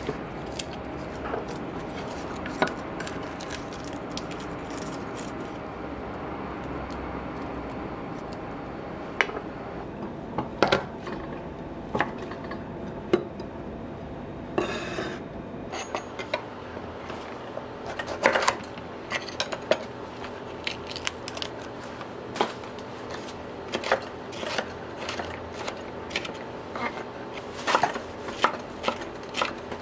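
Chef's knife cutting garlic cloves and then a red bell pepper on a wooden cutting board: sharp knocks of the blade on the board, scattered at first and coming in quick runs in the second half. A steady low hum lies underneath, with a brief rustle about halfway through.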